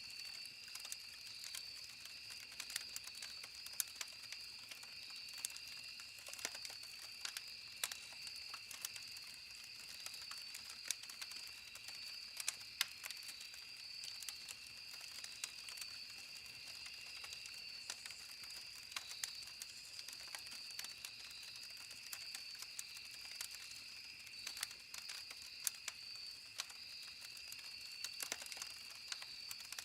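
Campfire crackling, with irregular sharp pops and snaps of burning wood. Behind it runs a steady, high-pitched insect trill.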